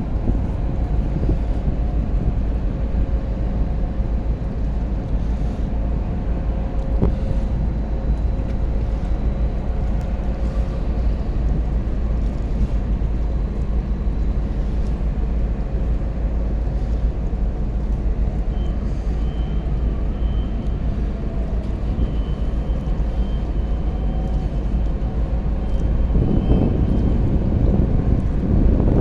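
Boat engine running steadily, with wind buffeting the microphone; a little louder near the end.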